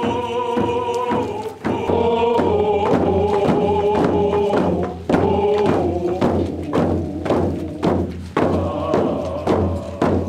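Hand drums beating a steady rhythm, about two beats a second, under voices singing together in long held notes: a Squamish ceremonial song.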